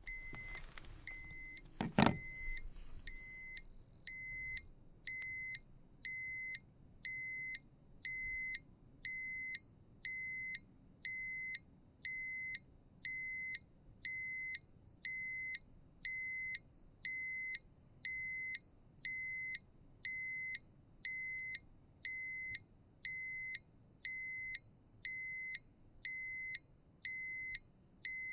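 Radiation dosimeter alarm: a steady high-pitched tone with a lower beep pulsing about once a second. It starts with a sharp click about two seconds in.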